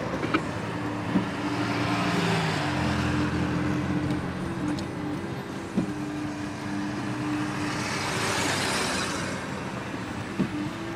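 Car driving down a road, heard from inside the cabin: steady engine and tyre hum, with the road noise swelling twice, around two seconds and around eight seconds in. A few light clicks sound through it.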